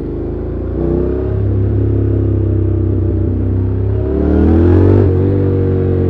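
Honda NC750X's stock-exhaust parallel-twin engine under way, heard from the rider's seat. It pulls as the throttle opens about a second in, and the revs climb before dropping back just after five seconds, as with an upshift.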